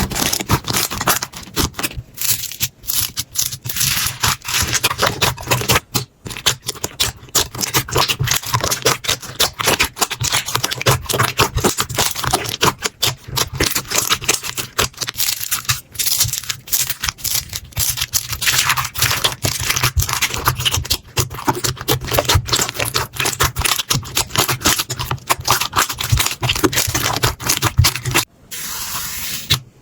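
Slime being squeezed and poked by hands: a dense, continuous run of small sticky clicks, pops and crackles, which briefly gives way to a softer hiss near the end.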